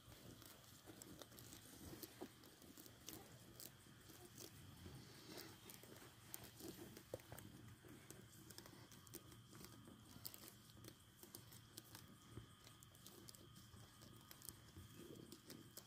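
Sheep grazing: faint, irregular crunching and tearing as they crop grass and chew.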